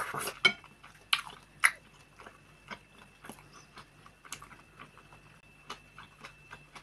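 A person chewing a mouthful of pelmeni (meat dumplings) in sour cream close to the microphone: irregular small mouth clicks and smacks, with two sharper clicks about a second in.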